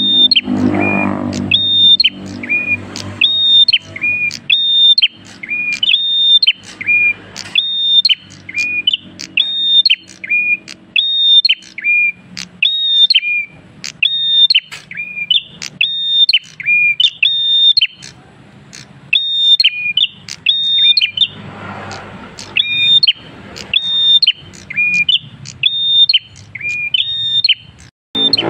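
Caged prenjak kristal singing hard and without pause ('gacor'): a fast, even string of sharp two-note whistles, a high note then a lower one, about one and a half phrases a second.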